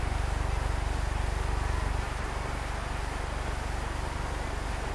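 Steady low hum with hiss from an old film soundtrack, dropping slightly in level about two seconds in.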